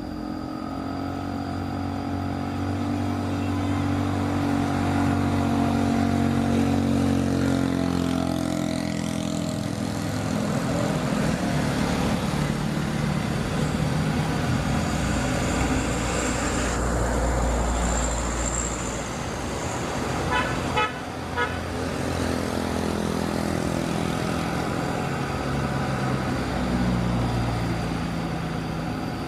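Radio-controlled model excavator's electric motors whining, the pitch shifting up and down in steps as it works, with a brief rapid ticking about two-thirds of the way through.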